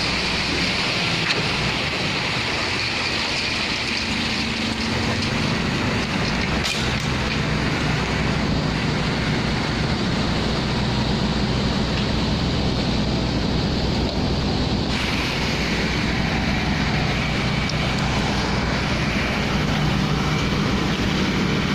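Heavy construction machinery engine running steadily: a low, even drone with a hiss above it.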